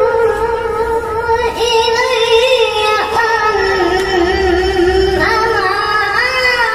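A boy qori reciting the Quran in melodic tilawah style, his high-pitched voice holding long, ornamented notes without a break for breath. The line sinks lower in the middle, then climbs again about five seconds in and turns into quick warbling ornaments near the end.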